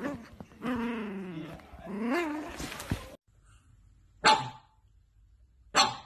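A pug puppy gives drawn-out, rising and falling play growls and whines. After that, a pug barks twice, short and loud, about a second and a half apart.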